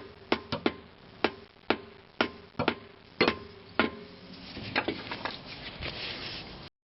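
Hammer blows knocking a coil spring spacer down into its seat on the rear axle, about ten sharp irregular strikes with a short metallic ring after each, then a few lighter taps.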